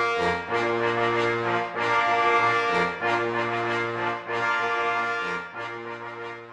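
Intro music of long held chords over a low bass line, the chords changing about once a second and fading near the end.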